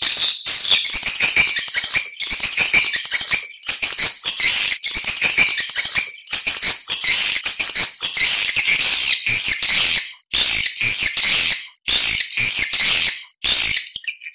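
Swiftlets twittering: a dense, high, chattering run of chirps and trills from many birds, broken by brief pauses every second or so. It is a recorded swiftlet lure call, played to draw the birds in to nest.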